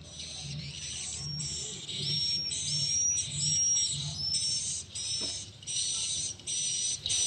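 Recorded swiftlet call sound (the SP AKAU 128 'panggil' lure, used to attract edible-nest swiftlets) played through horn tweeters: high electronic swiftlet chirps in quick clusters about twice a second, over a low pulsing beat.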